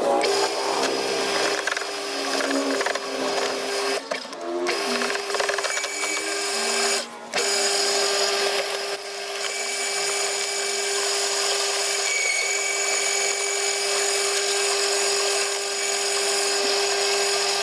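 Okay 2000 W electric roller shredder running with a steady motor whine while it crunches through branches. The sound cuts out briefly twice, about four and seven seconds in.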